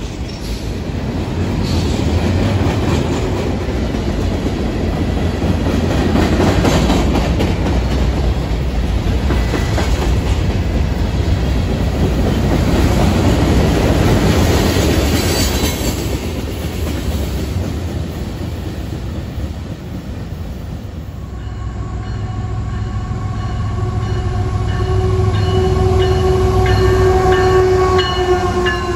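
Freight train cars rolling past close by: a steady rumble and clatter of steel wheels on the rails. About two-thirds in, a CSX diesel locomotive approaches and passes, its low engine rumble carrying a steady pitched tone that grows louder toward the end.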